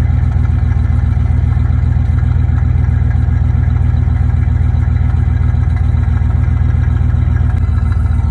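Old Chevrolet pickup's engine idling steadily, heard at the open end of its rusty tailpipe as a loud, low, even exhaust note.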